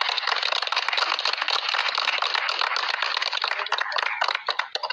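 A group of people clapping: dense, steady applause that stops abruptly near the end.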